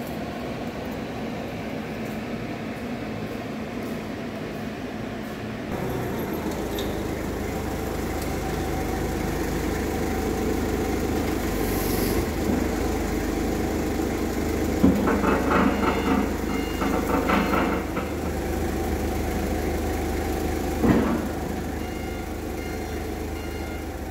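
Forklift engine running steadily as the heavy compactor blade is handled, with a few knocks and clatters of steel in the second half.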